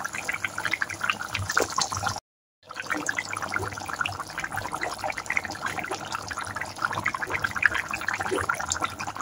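Snail curry boiling in a pan: the thick gravy bubbles with many small irregular pops and plops. The sound cuts out completely for about half a second a little after two seconds in.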